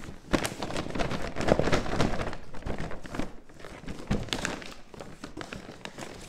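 Gift wrapping paper rustling and crinkling as a wrapped box is unwrapped, a dense run of irregular crackles with soft knocks, loudest about a second and a half in.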